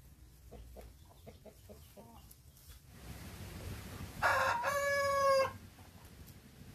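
A rooster crowing once, about four seconds in: a single loud crow lasting just over a second. A few faint short calls come before it.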